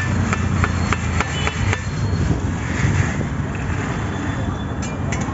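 A quick run of sharp clicks and knocks in the first two seconds and two more near the end, from the wooden sieve box and the roasted beans being handled, over a steady low rumble.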